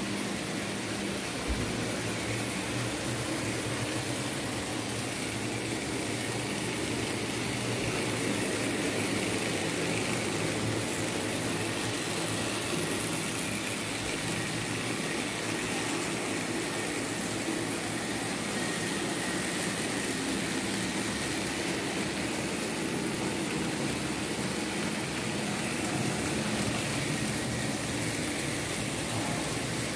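Märklin H0 model trains running on the layout: a steady mechanical running noise of small locomotive motors and wheels on the track, with a faint low hum.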